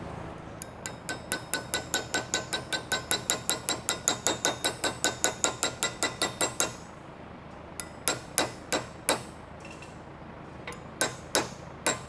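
Hammer tapping a sheet-metal patch panel to form a rolled edge: a quick, steady run of about four to five ringing blows a second for some six seconds, then a few slower, spaced single taps.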